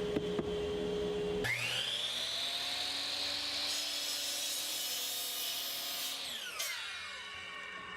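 Electric power saw switched on: its motor whines up to speed about a second and a half in and runs at full speed while cutting a treated 1x4 board. The motor is switched off about six seconds in, and the whine falls as the blade spins down.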